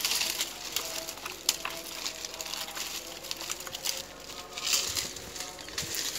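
Dry coconut palm fronds rustling and crackling as a small dog pulls and noses at them, in uneven bursts with sharp snaps of breaking leaf.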